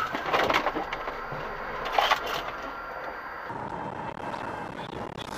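Road noise picked up by a car dashcam, with a sharp knock about two seconds in. The noise changes character about three and a half seconds in.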